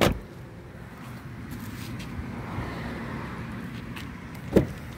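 A car door shuts with a thud at the start; traffic noise swells and fades in the background, and about four and a half seconds in a sharp latch click comes as the front door is pulled open.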